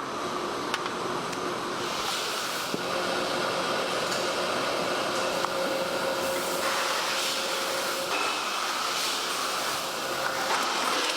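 Meat-processing machinery running steadily, a continuous hum with a few steady tones and surges of hissing that come and go.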